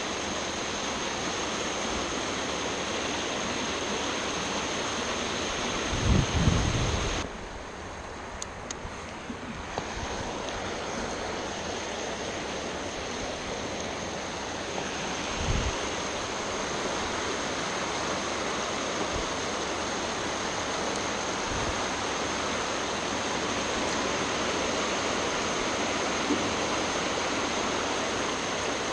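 Steady rushing water, with a constant thin high-pitched tone over it. A short low rumble stands out about six seconds in, and the water sound dips for a few seconds after it.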